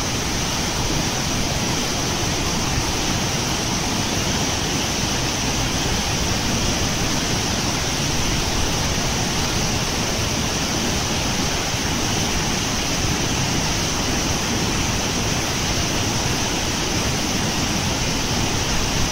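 Turbulent floodwater rushing and churning at the foot of a concrete dam wall: a steady, unbroken rushing noise.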